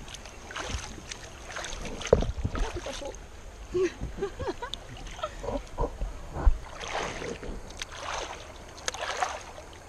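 River water lapping and splashing around rubber inner tubes as people float and paddle by hand, with scattered small knocks and two louder splashy swells in the second half.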